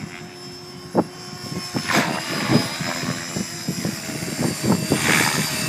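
Gaui X5 electric RC helicopter with a Scorpion motor, running at about 2600 rpm head speed as it comes down to land. It gives a steady high whine over irregular low buffeting and gets louder as it closes in.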